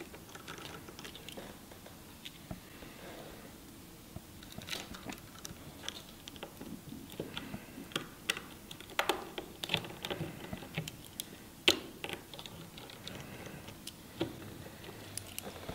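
Light, irregular clicks and taps of a precision screwdriver turning tiny screws into the metal ribbon-connector cover inside an iPhone 6.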